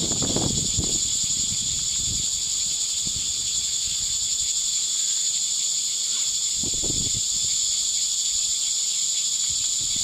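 Steady, high-pitched chorus of insects droning outdoors, with soft rustles of a string and knife being handled near the start and again about seven seconds in.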